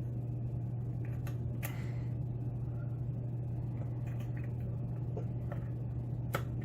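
Lock pick and tension wrench working spool pins in a pin-tumbler lock cylinder: scattered light clicks and ticks as the plug counter-rotates and the pins set, over a steady low hum.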